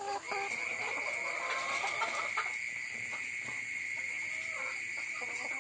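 Brown laying hens in a cage making short, soft clucking calls, over a steady high-pitched whine.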